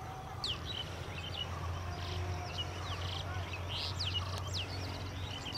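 Small birds chirping, with many short, quick sliding notes in overlapping calls, over a low steady hum.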